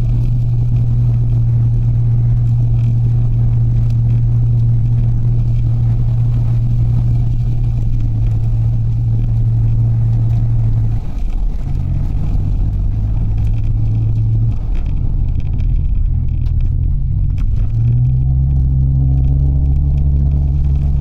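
Mitsubishi Delica van driving, its engine and road noise a loud, low, steady hum. The pitch shifts a few times in the second half as the engine speed changes.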